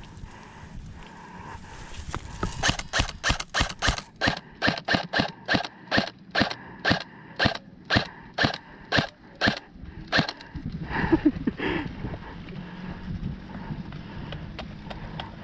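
Airsoft gun firing a rapid string of single shots, about two dozen sharp cracks over some seven seconds at roughly three a second. A brief, louder scuffling noise follows.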